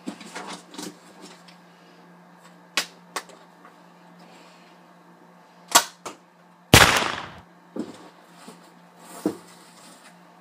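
Scattered sharp clicks and knocks of toy pistols being handled, then about seven seconds in a single loud gunshot sound effect that dies away over about half a second.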